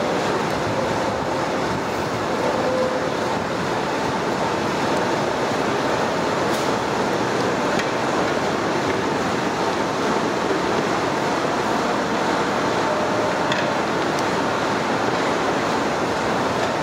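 Steady rushing noise of a large pot of biryani liquid boiling hard over a wood fire while a long ladle stirs it, with a few faint clicks.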